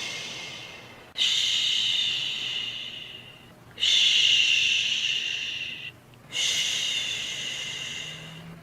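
Repeated soothing 'shhh' shushes for lulling a baby to sleep. Each starts abruptly and fades over about two and a half seconds, with short pauses between them. One is fading out at the start, and three more follow.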